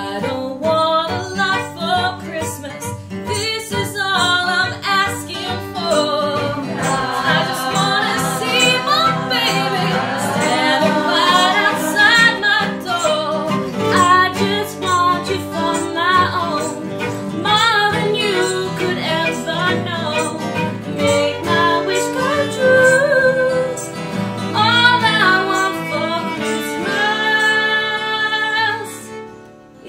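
A group of singers, led by women's voices, sings a Christmas song in chorus to strummed acoustic guitar and fiddle.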